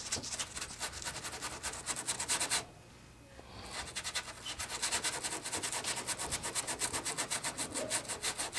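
Brillo-type scouring pad scrubbed in quick back-and-forth strokes over the painted wooden cabinet of a tube radio, working off old paint softened by paint stripper. It stops for about a second a third of the way in, then starts again.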